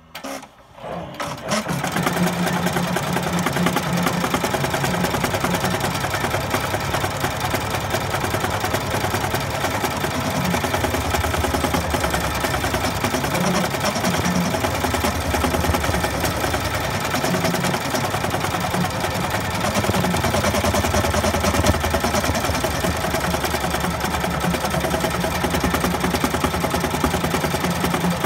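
Bernina E16 sixteen-needle industrial embroidery machine starting up about a second in, then stitching steadily at speed with a fast, even rhythm of needle strokes.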